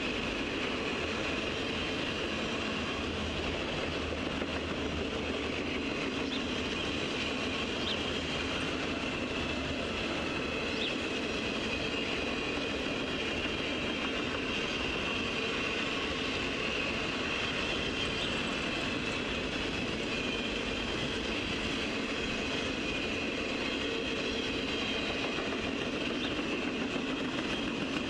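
Freight cars of a mixed manifest train rolling past: a steady rumble of steel wheels on rail with a thin high-pitched ring above it and a few faint clicks.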